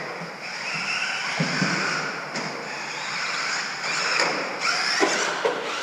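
Radio-controlled stadium trucks running on an indoor dirt track: motors whining up and down with the throttle and tyres on the dirt, with a few sharp knocks.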